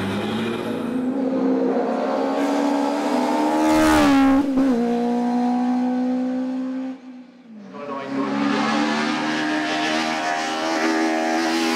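Racing car engine at full throttle, pitch climbing as it accelerates, with a quick gearshift about four and a half seconds in. About seven seconds in the engine note drops off briefly, as on lifting off, then it pulls hard again.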